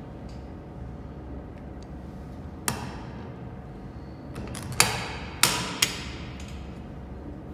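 Metal knocks and clanks of a button maker's oval mould being set into the press: one knock nearly three seconds in, a few light clicks, then three sharper clanks in quick succession about five to six seconds in.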